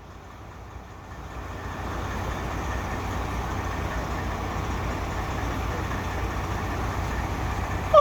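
A motor vehicle's engine running, growing louder over the first two seconds and then holding steady.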